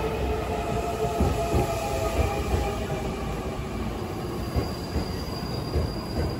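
A train passing by, giving a whine of several steady tones with wheel squeal that fades away over the first three seconds or so, over a continuous rumble.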